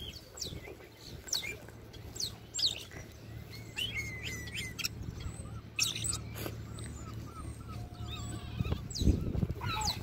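European starlings calling while they feed: a scatter of short whistles and chirps, with a run of quick repeated notes, about four a second, in the middle. A steady low hum runs underneath, and a low blustery bump comes near the end.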